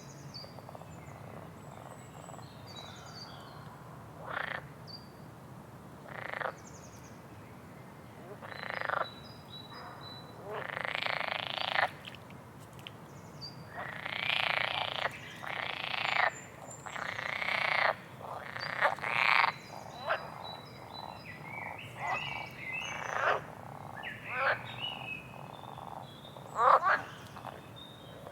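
Frogs croaking: a run of rough calls, each swelling briefly before it cuts off, every second or two, with faint high bird chirps between them.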